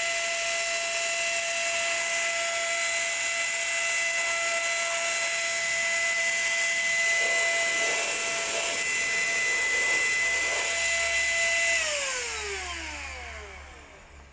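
Handheld electric spray gun running steadily, a high motor whine with a hiss of air and spray, while spraying black leather shoes. About twelve seconds in it is switched off and the whine falls in pitch and dies away as the motor spins down.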